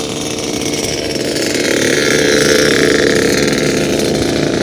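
A small engine running steadily, swelling louder toward the middle and easing off a little near the end.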